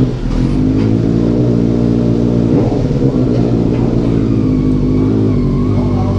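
Benelli TNT 600i's inline four-cylinder engine idling steadily just after being started.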